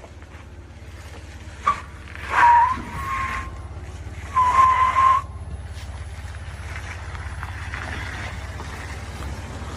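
Truck tyres squealing in four short bursts, the last and longest about halfway through, over a steady low hum.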